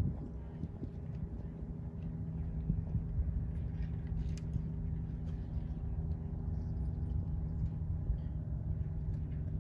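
An engine or motor running steadily at an unchanging pitch, with low wind rumble on the microphone.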